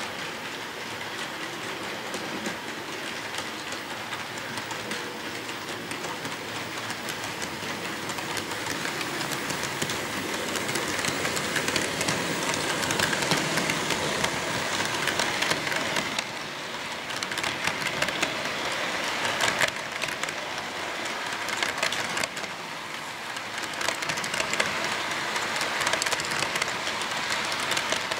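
HO scale model freight train rolling past, its metal wheels clicking over the joints of the plastic-roadbed sectional track with a steady running rattle. It grows louder about ten seconds in as the cars pass close by.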